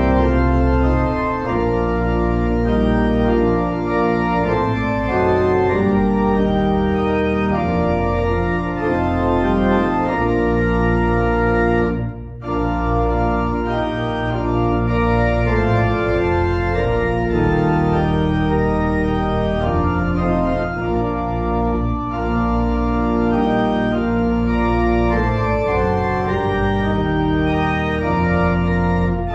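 Organ music: slow sustained chords over a steady bass line, with a brief break about twelve seconds in.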